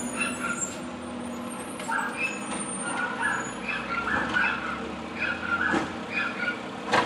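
Automated side-loader garbage truck's diesel engine running as it pulls up and stops, with its hydraulic arm lifting a cart, and short high squeaks throughout. A sharp bang near the end as the lifted cart is tipped over the hopper.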